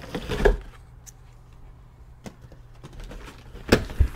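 A taped cardboard shipping box being opened by hand: a short scrape and rustle at the tape near the start, a few faint clicks, then two sharp cracks as the flaps are pulled apart near the end.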